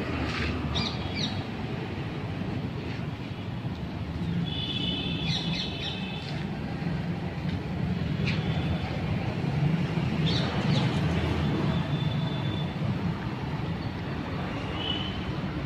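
Outdoor street ambience: a steady low rumble with short, high chirping calls breaking in every few seconds.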